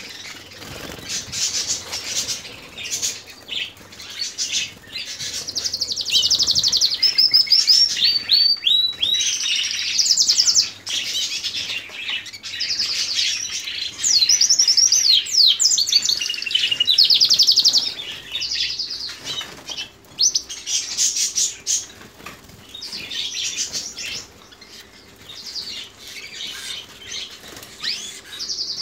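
Canaries singing: long, rapid trills and gliding rolls from several birds at once, loudest through the middle, with wings flapping in the cage.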